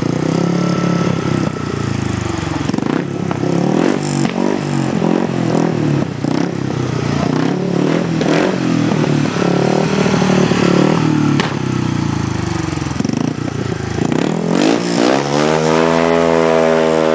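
Speedway motorcycle's single-cylinder engine running and being revved up and down, then climbing steadily in pitch as it accelerates hard near the end.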